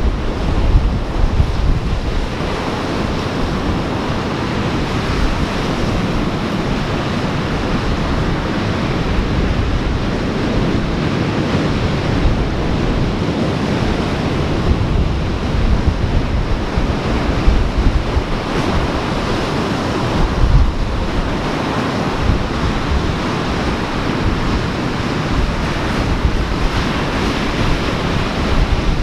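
Ocean surf washing steadily, swelling and easing every several seconds, with wind buffeting the microphone.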